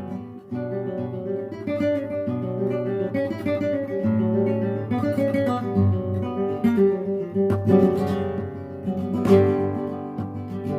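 Acoustic guitar music with strummed chords at a steady moderate level.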